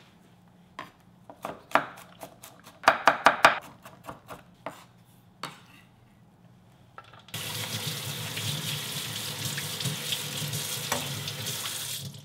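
Chef's knife chopping garlic on a wooden cutting board: scattered knife taps with a quick run of strokes about three seconds in. From about seven seconds in, a kitchen faucet runs steadily into a stainless steel sink.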